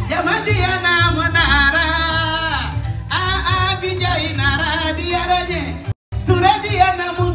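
Music with a solo voice singing a wavering melody over a strong, steady bass. The sound cuts out for an instant about six seconds in.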